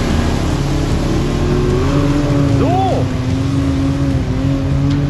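Side-by-side UTV engine running hard as the buggy pushes through deep mud and water, with one quick rise and fall in pitch about halfway through.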